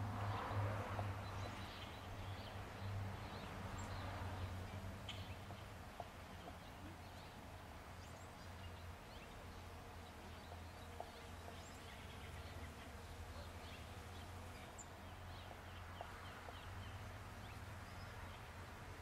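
Honey bees buzzing around weeping cherry blossoms as a steady low hum, with faint birds chirping now and then.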